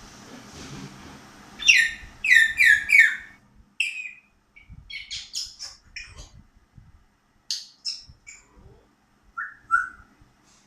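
African grey parrot whistling and chirping: four loud, sharp calls in quick succession about two seconds in, then scattered shorter chirps and clicks, and two lower whistles near the end.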